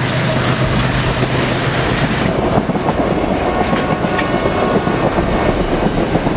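Freight train of hopper wagons passing close by, its wheels clattering over the rails with a steady rumble. A low steady hum drops out about two seconds in.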